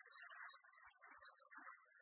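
Very faint, thin background music with no bass, barely above silence.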